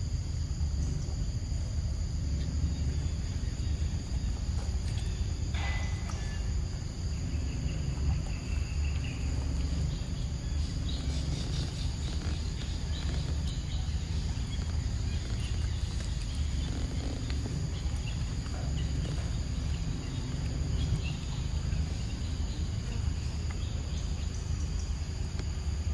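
Forest ambience: insects buzzing in steady high tones over a steady low rumble, with a few faint clicks.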